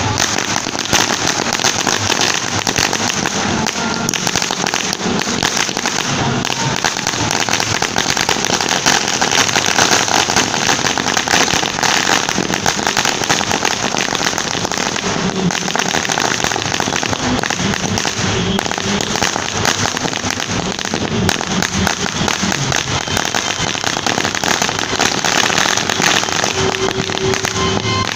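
A 5000-wala laar, a long string of small chilli firecrackers, going off as one dense, unbroken rattle of rapid bangs.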